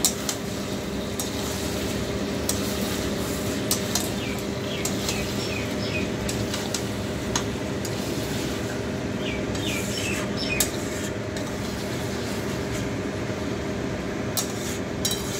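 Metal spatula stirring chicken pieces in a steel kadai, scraping and knocking against the pan in scattered clicks, over a steady low hum.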